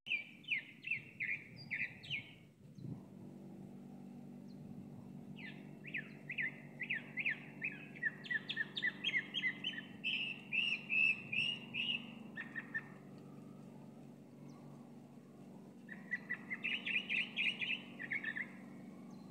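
Chalk-browed mockingbird singing: three bouts of quick repeated notes, each a few seconds long, with short pauses between. A faint low steady hum runs underneath from about three seconds in.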